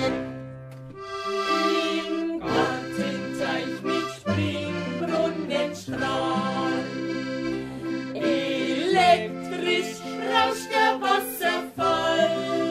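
Instrumental traditional folk music led by an accordion, playing held chords over a steady bass.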